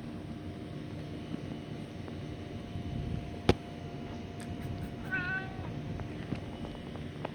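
A pet cat meows once, a short call about five seconds in, over a steady low background hum. A single sharp click about three and a half seconds in is the loudest sound.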